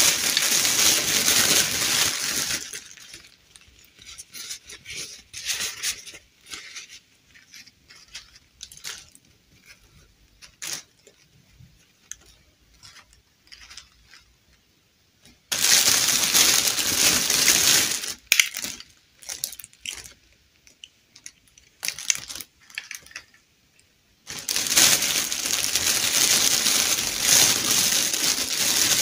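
A clear plastic bag crinkling loudly as hands rummage through it for dolls, in three stretches: at the start, about halfway through, and over the last few seconds. Between them come only faint scattered clicks and rustles of handling.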